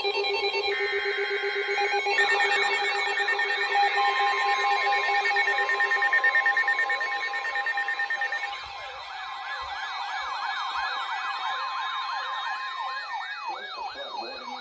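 Weather radio receivers going into alert: several electronic siren-style alarms sound together. Beeping tones at the start give way to slow wailing sweeps, with a steady alarm tone under them. From about nine seconds in, a fast yelp of about two sweeps a second takes over, signalling the coastal flood warning that follows.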